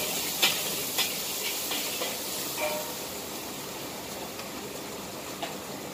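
Garlic sizzling in hot oil in a wok, a steady hiss that slowly fades. A few sharp taps and scrapes of the metal spatula against the wok come in the first three seconds.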